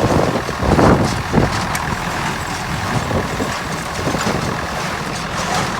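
1971 David Brown 990 tractor's four-cylinder diesel engine running steadily under load, driving a New Holland 268 square baler through the PTO as it picks up and bales hay. A few louder bursts come in the first second and a half.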